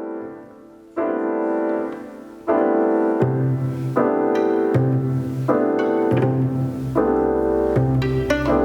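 Modern classical music led by piano: chords struck at about one and two and a half seconds in, then repeated roughly every three-quarters of a second, with a low bass line joining about three seconds in and a deep held note near the end.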